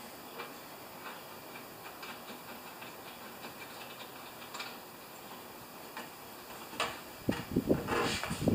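Faint ticks and light metallic clicks as a spark plug is turned by hand into the cylinder head of a two-stroke snow thrower engine, with a quick run of louder clicks and knocks about seven seconds in.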